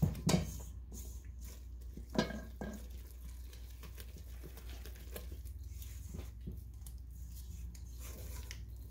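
Spatula stirring thick almond-flour batter in a stainless steel mixing bowl: soft scraping and squishing, with a few sharp knocks against the bowl near the start and about two seconds in.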